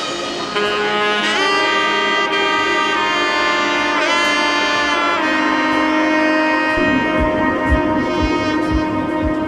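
Background music: a wind-instrument melody of long held notes, with a light drum beat coming in about seven seconds in.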